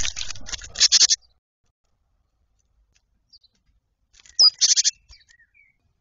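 A camera knocked over, scraping and rustling as it tumbles for about a second. After a pause, a small bird splashes in a shallow bird bath in a quick flurry of strokes, with a short chirp.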